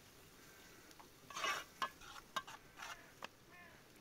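A spoon stirring and scraping in a metal cooking pot over a wood fire, with a few sharp clinks against the pot.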